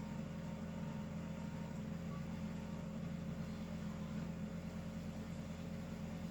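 Steady low hum with no distinct snore or breath standing out.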